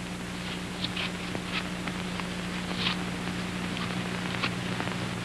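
Knife working a Rome apple, peeling and coring it: an irregular string of short, crisp scrapes and clicks over a steady low hum.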